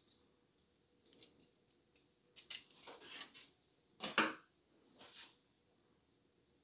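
Small metal CPU-cooler mounting brackets and screws clinking and jingling as they are handled, in several short bursts, with one duller, louder knock about four seconds in as a part is set down on the motherboard.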